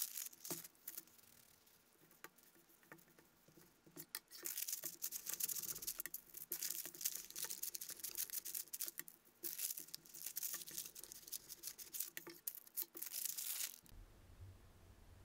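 Parchment paper crinkling and rustling in dense, rapid crackles as it is wrapped around a log of cookie dough and pressed tight with a plastic bench scraper. It starts after a few seconds of soft handling sounds and stops abruptly near the end, leaving a low hum.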